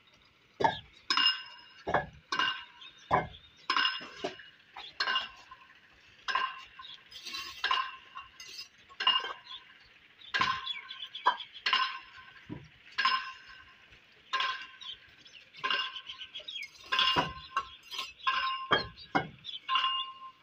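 Steel mason's trowel tapping and striking fired clay bricks as they are laid in mortar: irregular sharp metallic clinks, one or two a second, each with a short ring.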